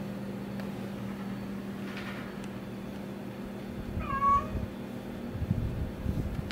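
A cat meows once, briefly, about four seconds in, over a steady low hum. A few low thumps follow near the end.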